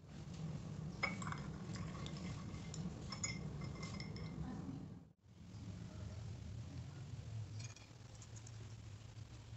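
A metal rod swirled in a ceramic mug of liquid to quench it, clinking against the mug's sides several times in the first half, over a steady low hum. After a brief dropout about halfway, the hum goes on with a few faint clicks.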